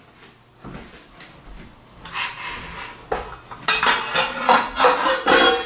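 A 255 mm TCT saw blade clinking and scraping against the metal parts of a sliding mitre saw as it is fitted onto the arbor. Faint handling for about two seconds, then a run of metallic clatter, loudest near the end.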